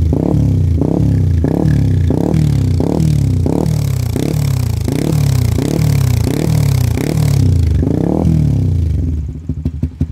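Suzuki GSX-R150's single-cylinder four-stroke engine through a CLD C3 Oval aftermarket muffler with its dB killer removed, being blipped lightly and repeatedly at about one and a half revs a second. About nine seconds in it drops back to an even idle.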